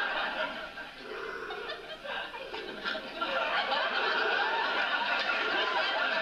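Sitcom studio audience laughing at length, easing off about a second in and swelling again from about three seconds in.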